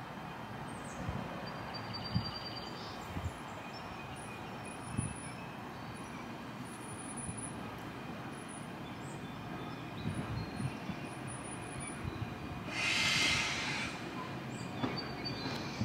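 General Electric Arrow III electric multiple-unit train rolling slowly in over switches. Its wheels knock now and then at the joints over a low rumble. A short burst of hiss comes about thirteen seconds in.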